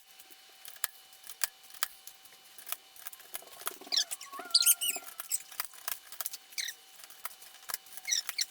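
Keycaps being pulled off an Apple M0116 keyboard with a keycap puller: a run of sharp plastic clicks as the caps pop off their switches, with squeaky plastic rubbing, mostly in the middle.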